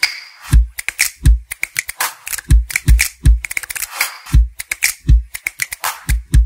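Electronic intro music: a driving beat of deep kick drums and crisp clicking percussion, with swishing sweep effects over the transitions, one right at the start and another about four seconds in.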